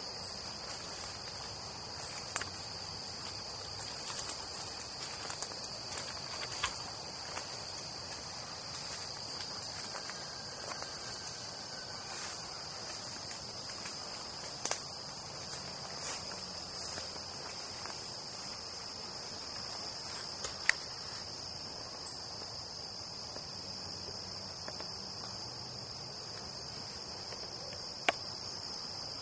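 A steady, high-pitched insect chorus that never lets up, with a few short sharp clicks or snaps scattered through it; the loudest come about two-thirds of the way in and just before the end.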